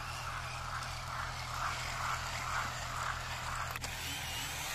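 Toy RC rock crawler's small electric motors and plastic gearbox whirring steadily, with a pulsing whir over a low hum, as its tyres spin and dig into sand.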